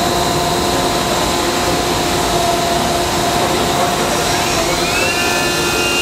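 Daewoo DMV 3016 vertical machining center's spindle running at high speed, about 6,500 rpm, with a steady mechanical whine. About four and a half seconds in, a higher whine rises briefly and then holds.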